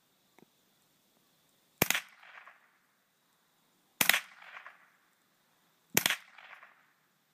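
Three shots from a Ruger 10/22 semi-automatic .22 rimfire rifle, about two seconds apart, each a sharp crack followed by a short echo.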